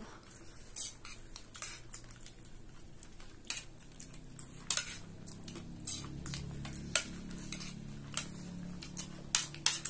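Small metal spoons clinking and scraping on plates as spicy chatpate, a crunchy puffed-rice snack, is scooped up, with mouth sounds of eating. The clicks come irregularly, several a second.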